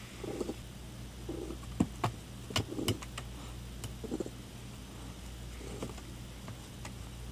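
Elderly domestic cat purring in soft pulses, with a few sharp clicks and taps about two to three seconds in as it paws at a toy.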